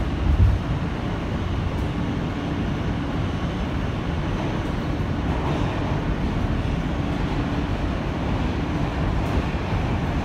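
Ride noise inside an R160 subway car running at speed through a tunnel: a steady rumble and rush of wheels on rail, with a low thump about half a second in.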